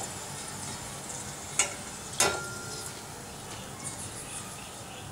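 Hot oil sizzling steadily as deep-fried badhusha are lifted out of a steel kadai on a wire spider skimmer. Two sharp metal clinks, about a second and a half and about two seconds in, the second ringing briefly.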